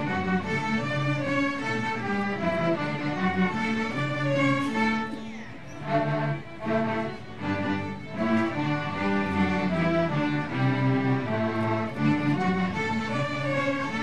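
Children's string orchestra playing live, many violins bowing sustained notes together in a melody. The playing softens briefly about five seconds in, then comes back at full strength.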